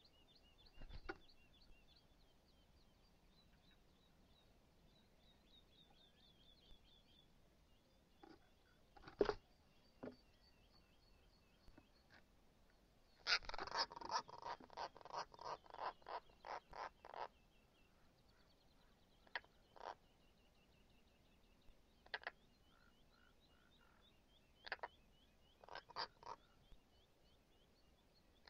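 Knocks and scuffles from birds in a wooden nest box, with a European roller at the entrance hole and a Eurasian wryneck inside. There are scattered single sharp knocks, and around the middle a rapid run of harsh sounds, about four a second for some four seconds, which is the loudest part. Faint high chirping song from birds outside runs underneath.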